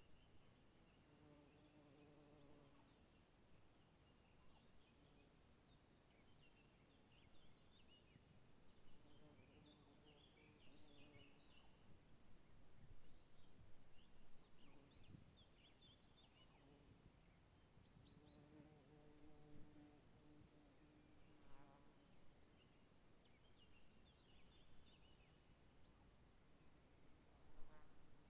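Faint, steady high-pitched trill of crickets, with scattered faint short chirps above it. A faint low hum comes and goes three times.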